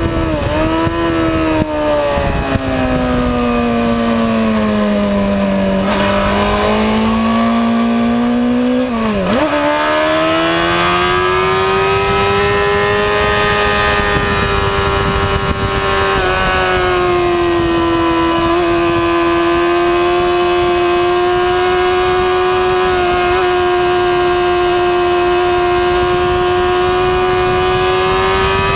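Motorcycle engine ridden at track speed, heard from an onboard camera with wind rush. The revs sink gradually for several seconds, dip sharply and jump back up at a gear change about nine seconds in, then hold nearly steady.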